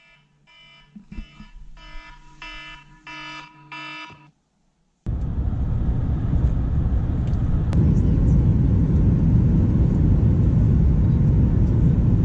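Electronic alarm beeping about twice a second, getting louder, then cutting off about four seconds in. About a second later a loud, steady rumble of travel noise from inside a moving vehicle starts suddenly.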